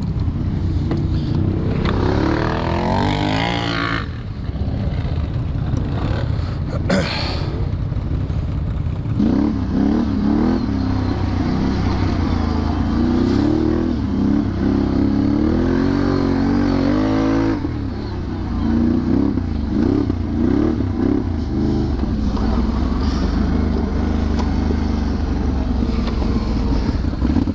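Can-Am Renegade 1000 XXC ATV's V-twin engine running on a trail ride, its pitch rising and falling over and over as the throttle is opened and eased off. There is a sharp knock about seven seconds in.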